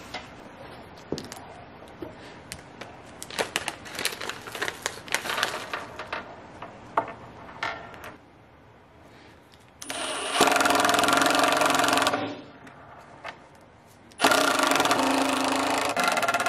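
A small power tool's motor running in two bursts: one of about two seconds, then after a short pause a second that keeps going. Before it, a stretch of scattered clicks and knocks.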